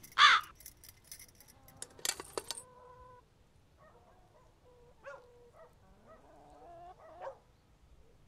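Faint clucking of chickens: short pitched calls, some sliding upward, scattered through the second half, after a few light clicks about two seconds in.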